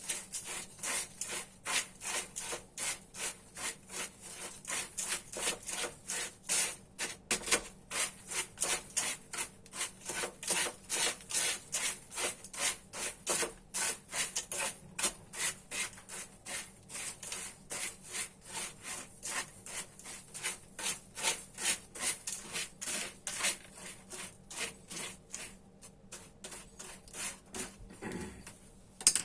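Quick rhythmic rasping strokes of something rubbed back and forth on a hand grater, about two to three strokes a second. The strokes thin out near the end, and there is one sharp knock at the end.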